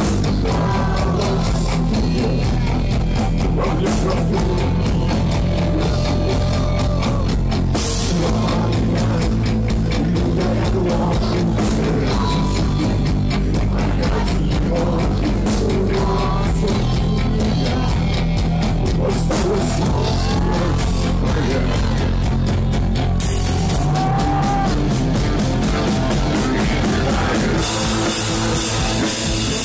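Punk rock band playing live and loud: electric guitars, bass and a drum kit keeping a steady beat, with a male lead singer singing in Russian over it. The cymbals get louder near the end.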